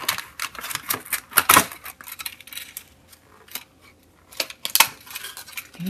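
Hard plastic toy parts clicking and clattering as a toy cage and dinosaur figure are handled and freed from clear plastic packaging. It is a string of sharp clicks and knocks, loudest about a second and a half in and again near the end.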